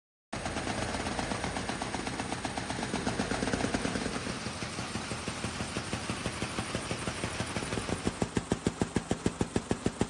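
Flapping-wing bird drones running, their motor-driven wing mechanisms making a rapid mechanical rattle. Near the end it settles into a strong regular beat of about five wing strokes a second.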